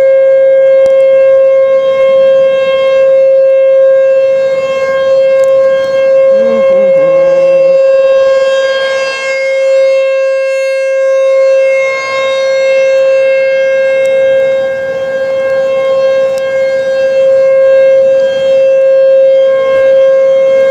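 Outdoor tornado warning siren sounding a loud, steady tone, swelling and fading every few seconds, a signal that a tornado warning is in effect.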